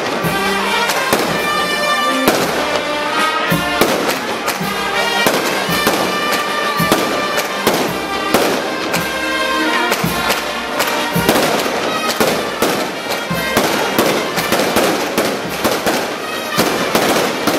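Firecrackers going off in a rapid, irregular string of cracks and bangs, over music with long held notes.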